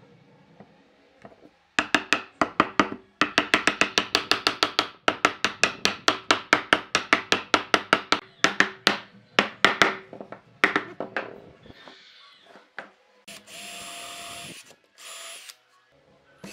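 A hammer knocking a wooden cross-lap joint together with rapid blows, about five a second, for around ten seconds. Near the end a cordless drill runs twice briefly, driving a screw into the joined wood.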